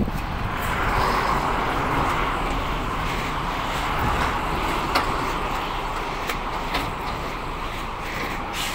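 Road traffic on the street beside the sidewalk: a steady rush of vehicle noise that swells about a second in, with a few faint knocks.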